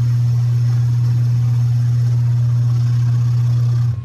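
Metal lathe running while boring the inside of a cast crankcase: a loud, steady low hum that stops suddenly near the end.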